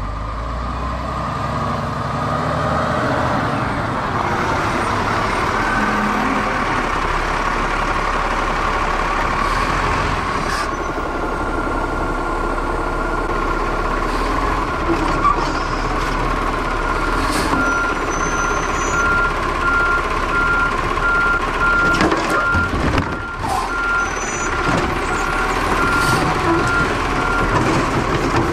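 Automated side-loading garbage truck working at the curb: its engine and hydraulics run steadily as the arm reaches out, grips and lifts a trash cart, with a few knocks about two-thirds of the way through. A steady beeping alarm starts a little past the middle and keeps going.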